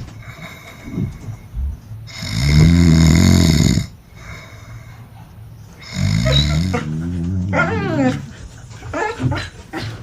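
A person snoring loudly, two long snores about two and six seconds in. Between and after them a Border Collie answers with rising and falling whines and grumbles.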